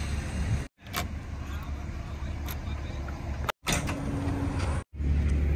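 Backhoe loader's diesel engine idling steadily, with a couple of sharp clicks as the cab door is worked; the sound cuts out completely three times for a split second.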